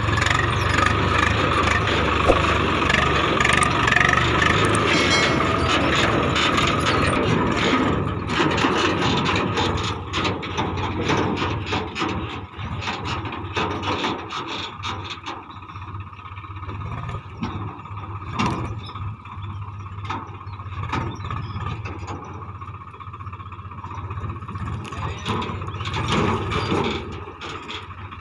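Swaraj 744 FE tractor's three-cylinder diesel engine running loud for about the first eight seconds. After that a quieter diesel engine runs on under a JCB 3DX backhoe loader digging soil, with repeated knocks and clunks from its bucket and the soil.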